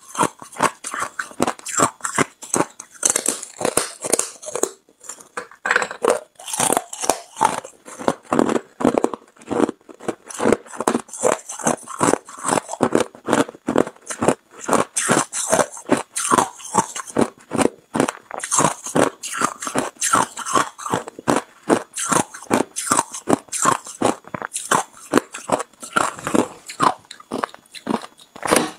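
Hard ice being bitten and chewed: a long ridged bar of frozen ice crunched between the teeth in a steady run of sharp cracks and crunches, several a second.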